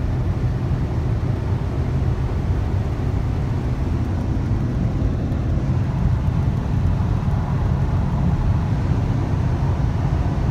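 Steady low drone inside the cabin of a Volkswagen Golf 7 1.6 TDI diesel tuned with a big turbo, cruising flat out at over 200 km/h, engine, wind and tyre noise blended together.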